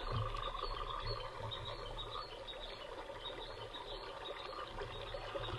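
Water trickling steadily, with a low hum underneath that swells and fades.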